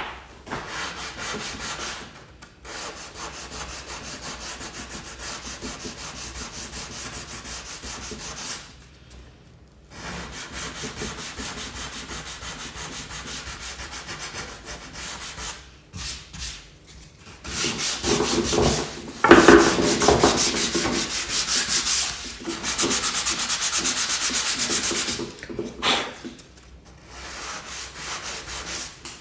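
Sanding wood, abrasive paper rasping over the chiselled-out glue joint of a door stile to smooth it. It goes in bouts with short pauses and gets much louder for a stretch in the second half.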